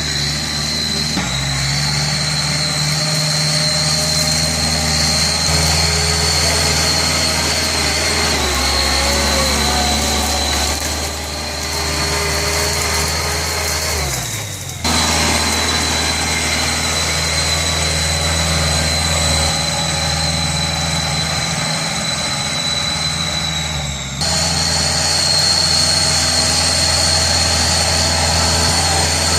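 Kubota L5018 tractor's diesel engine running steadily while ploughing, with a steady high whine above the engine note. The sound changes abruptly twice, about halfway through and again later.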